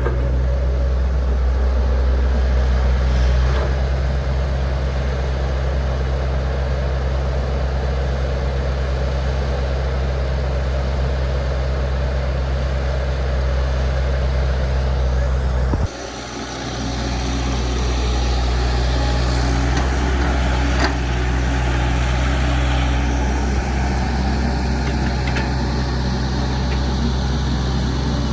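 Heavy diesel machinery engine running steadily with a deep, even hum, briefly cutting out and coming back about halfway through.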